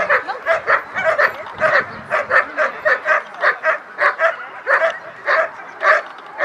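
German Shepherd barking steadily at the protection helper, about three sharp barks a second, while guarding him face to face in the hold-and-bark phase of protection work.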